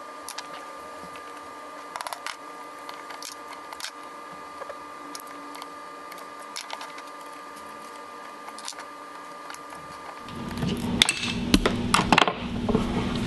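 Scattered light metal clicks and taps from prying the locking pins out of a golf cart limited-slip differential carrier with a screwdriver, then louder handling noise and a quick run of sharp metal clicks and clatter near the end.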